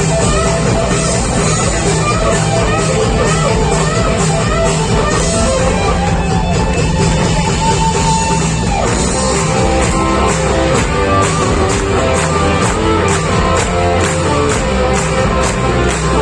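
Rock band playing live and loud, electric guitars to the fore, with drums keeping a steady beat that comes through plainly in the second half.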